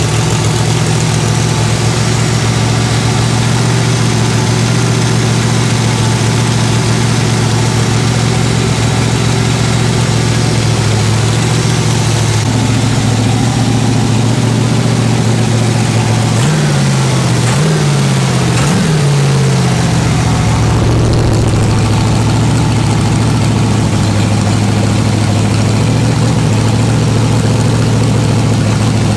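Freshly built Chevrolet 350 small-block V8 with a solid-lifter cam running steadily on an engine stand, out through headers into mufflers. About two-thirds of the way in its speed swings up and down a few times in quick blips, then it settles back to a steady run.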